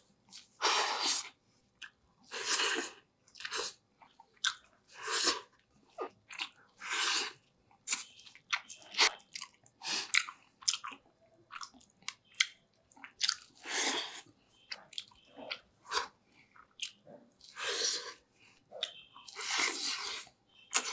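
A person eating mussels, rice and sinigang broth: chewing and mouthfuls in irregular bursts about once a second, with a few short clicks in between.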